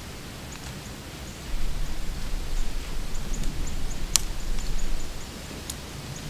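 Outdoor woodland ambience with a low rumble on the microphone from about a second and a half in until about five seconds, a single sharp click near the four-second mark, and faint, short, high chirps scattered throughout.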